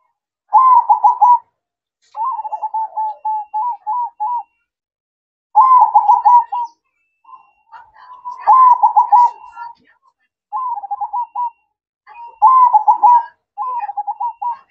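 A zebra dove (perkutut) sings its cooing song: runs of quick, clipped coo notes, repeated about six times with short pauses between. Loud runs alternate with softer, longer trailing runs.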